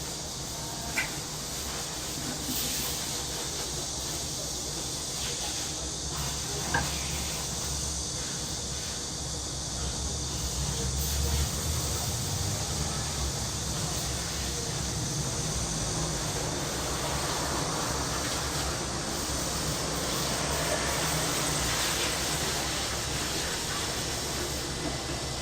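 Summer back-alley ambience: cicadas droning steadily over a low traffic rumble that swells a little around the middle, with two short sharp clicks, one about a second in and one near seven seconds.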